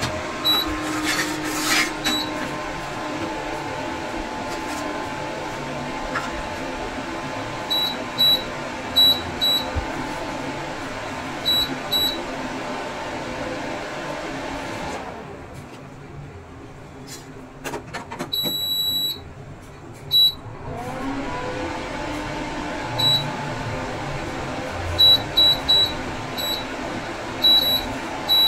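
Opened Prestige induction cooktop switched on under test, with a steady fan whir and its buzzer giving short high beeps now and then. About halfway the whir drops away for several seconds with one longer beep, then comes back, rising in pitch.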